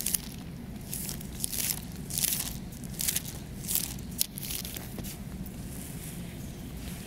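Bible pages being leafed through, a run of short crisp paper rustles about one or two a second that stops after about four seconds, leaving a low steady hum.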